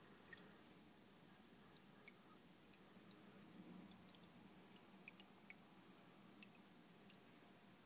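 Near silence: faint room tone with scattered small ticks.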